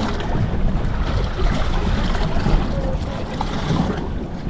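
Steady wind rushing and buffeting the microphone, over the wash of a choppy sea around a small boat.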